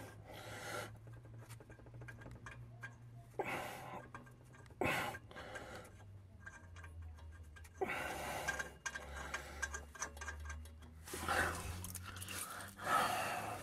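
Faint handling noise of copper exhaust nuts being spun by hand onto the flange studs of an exhaust flex pipe: small irregular clicks and scrapes of metal and glove.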